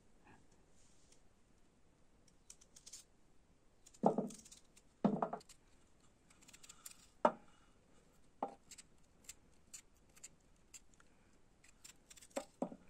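Small kitchen knife slicing peeled potatoes into rounds by hand, the slices dropping onto a metal tray: an irregular run of crisp cuts and light clicks. A few knocks, about four, five and seven seconds in, are louder than the rest.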